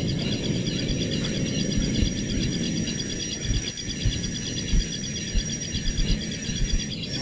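Insects chirring steadily in a rapid pulsing trill, with a steady high whine above it. Beneath them, a low rumble with a few soft thumps.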